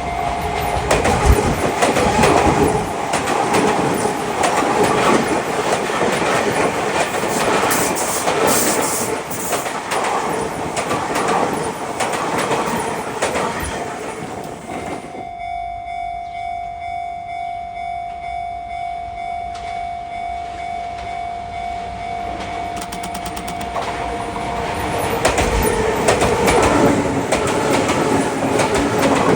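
Commuter electric train passing with a rumble and the clatter of wheels over rail joints, then cutting off sharply about halfway. A level-crossing alarm then keeps ringing with a steady pulsing tone until, near the end, the next train approaches and the rumble and clatter build again.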